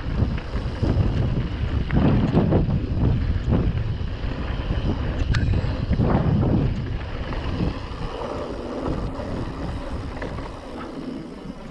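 Wind buffeting the microphone in uneven low gusts, strongest in the first half and easing near the end.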